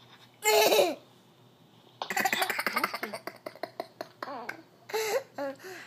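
A newborn baby's short sneeze about half a second in, then a young child laughing from about two seconds in, in a quick run of giggles.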